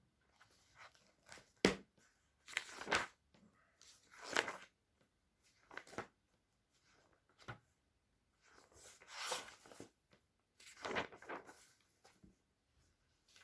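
Intermittent small handling sounds: soft rustles and brushes with a few sharp clicks in between, in a small quiet room.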